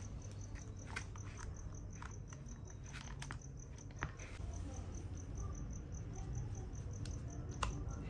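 Light plastic clicks and taps as a plastic bumper is handled and fitted onto a small RC car's chassis, with a sharper click about four seconds in and another near the end. Under them a steady high pulsing repeats about four to five times a second, over a low hum.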